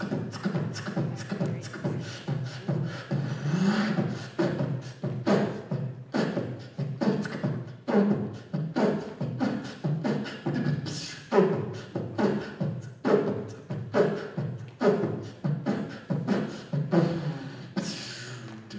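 Beatboxing into a handheld microphone: a steady, fast beat of vocal kick-drum and snare hits with low hummed tones between them.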